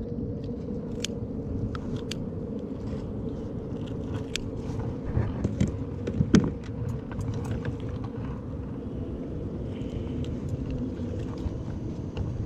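Steady low outdoor rumble, with scattered light clicks and taps from a metal fish grip and kayak gear being handled, and one louder knock about six seconds in.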